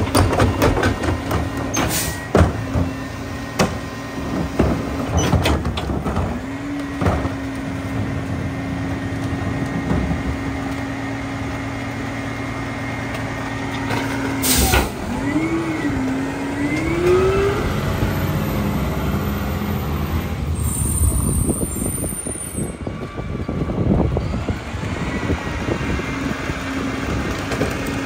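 Mack LEU garbage truck with a Leach rear-loader body emptying a cart and packing. First come clanks and knocks as the cart tipper dumps the cart. Then the engine is held at raised revs with a steady hydraulic whine while the packer blade cycles, with a short sharp burst of air hiss about halfway and the pitch wavering up and down just after it.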